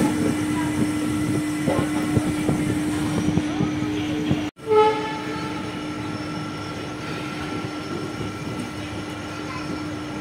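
Passenger train rolling slowly into a station, wheels clicking over the rail joints under a steady hum. About halfway through, after a cut, there is a brief loud blare, then quieter steady rolling along the platform.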